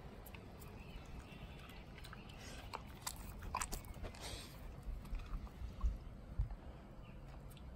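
Dog eating rice off a concrete step: scattered small clicks of biting and chewing, most of them in the middle, with a few dull low thumps later on.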